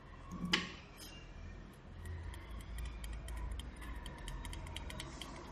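Soldering iron tip and metal tools clicking and tapping against a mobile phone circuit board while the LCD connector is desoldered: one sharp click about half a second in, then many faint light ticks over a low steady hum.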